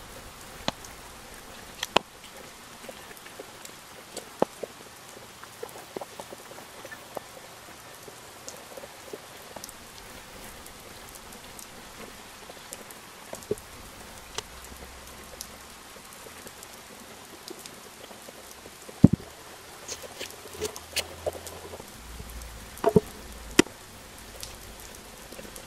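Potting soil being scooped with a metal trowel and pressed around a succulent by gloved hands: a soft, steady crumbling hiss with scattered small clicks and taps, one sharp tap a little past the middle and a few more near the end.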